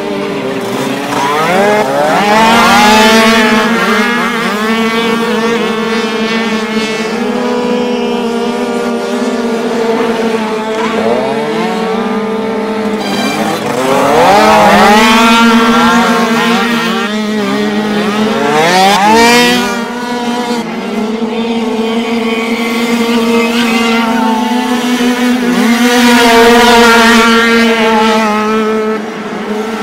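Several small 49cc two-stroke dirt bike engines racing past at high revs, a buzzing mix of engine notes with one steady note underneath. Engines rev up sharply again and again, about four times, as riders accelerate out of the turns.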